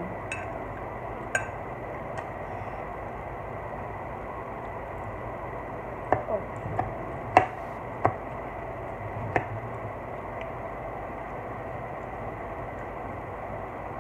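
A metal fork clicking against a glass baking dish about eight times, most of them between about six and nine and a half seconds in, over a steady background hiss.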